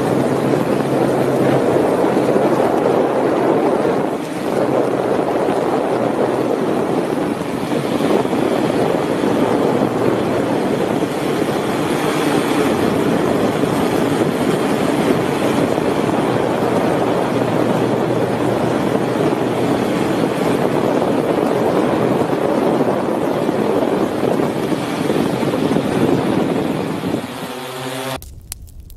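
Steady whirring rush of a camera drone's propellers in flight, with a faint steady hum underneath; it fades away near the end.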